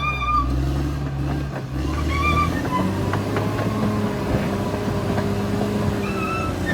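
Caterpillar D6R XL bulldozer's diesel engine running under work, its note changing about three seconds in. Short high-pitched squeals come in about two seconds in and again near the end.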